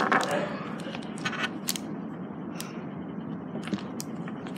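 Scattered light clicks and taps of small objects being handled on a tabletop, over a steady background hum of a room.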